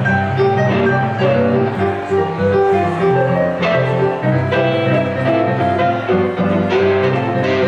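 Live band playing an instrumental passage with no singing: hollow-body archtop electric guitar and keyboard over a moving bass line.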